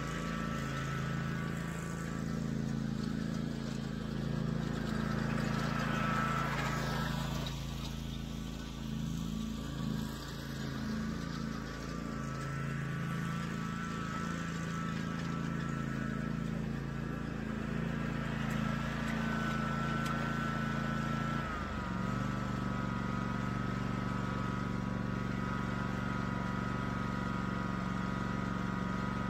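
Toro zero-turn riding mower engine running steadily while it tows an aerator across the lawn. About 22 s in the engine note shifts down and settles into a lower steady run.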